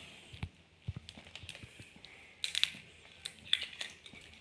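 An egg tapped against the rim of a bowl and its shell cracked and pulled apart: a few light clicks and taps, with a quick cluster of them about two and a half seconds in.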